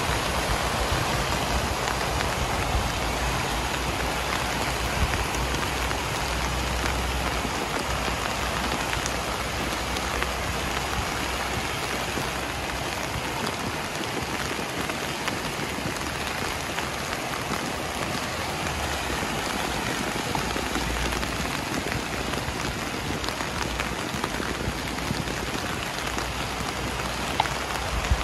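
Steady rain falling and pattering on surfaces, with single drops ticking now and then and a low rumble that comes and goes.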